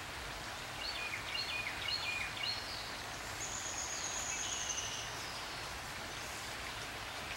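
Steady patter of light rain on a wetland pool, with a songbird singing a phrase of quick repeated notes about a second in, followed by one long high note.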